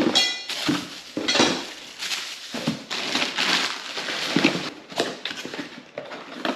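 Loose metal brackets from an intake kit clinking and clanking as they are handled, with packaging rustling. There is one sharp clank with a brief metallic ring at the start.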